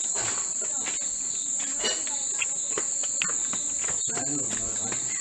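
Insects chirring in a steady high-pitched chorus, with scattered light ticks and rustles.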